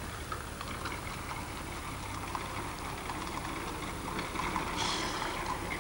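Horse hooves clopping on the road over the steady rattling rumble of horse-drawn carriage wheels, with a brief hiss about five seconds in.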